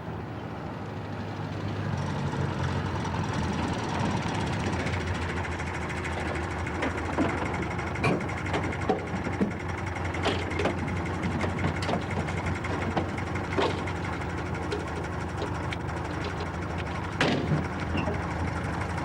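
An engine running steadily, with scattered sharp clicks and knocks over it.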